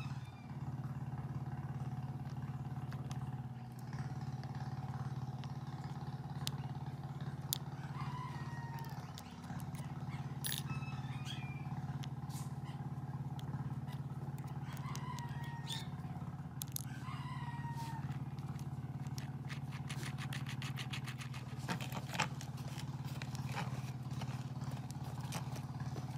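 A rooster crowing a few times over a steady low hum, with scattered sharp metal clicks and a quick run of clicks from hand tools working a bicycle wheel hub's axle nut and loose ball bearings.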